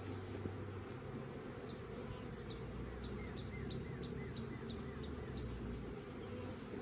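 Honeybees buzzing around an open hive during a nuc installation: a steady mass hum. A run of short, high, falling chirps sounds for a couple of seconds in the middle.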